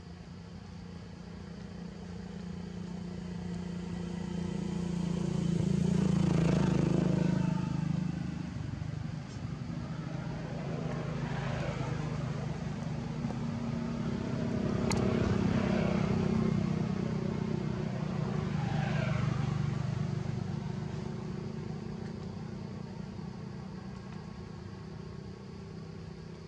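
Motor vehicles passing by several times, each one swelling in loudness and falling in pitch as it goes past. The loudest passes come about six seconds in and again around fifteen seconds in.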